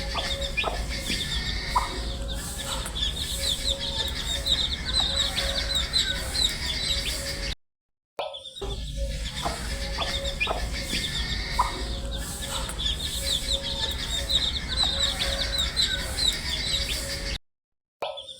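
A brood of baby chicks peeping continuously, many high, short chirps overlapping one another, over a steady low hum. The sound drops out to silence for about half a second twice, about seven and a half seconds in and near the end.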